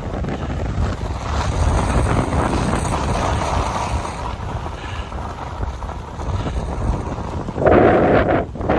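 Wind buffeting the microphone while sliding fast down a groomed ski slope, with the hiss of packed snow under the sliding edges. Near the end there is a louder, rougher scrape lasting under a second, as the slider turns hard across the slope.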